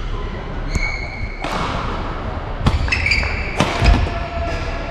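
Badminton rally in a large sports hall: high squeaks of court shoes on the court floor, sharp racket hits on the shuttlecock and the thud of a player's lunge, with hall echo.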